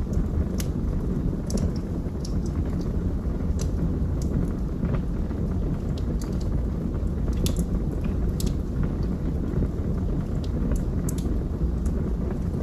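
Wood fire burning in a fireplace: a steady low rumble of the flames with irregular sharp crackles and pops, a few to several every second.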